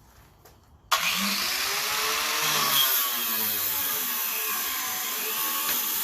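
Power cutting tool running and cutting through the steel emergency brake cables, starting suddenly about a second in and stopping sharply near the end, its pitch wavering as it loads up in the cut.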